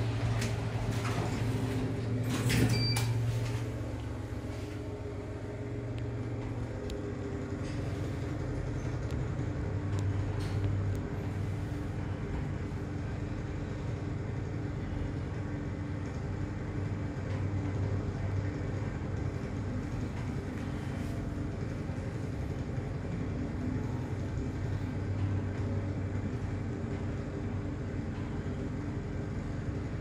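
A passenger lift's sliding doors shut with a brief clatter about two and a half seconds in, then the car travels upward with a steady low hum.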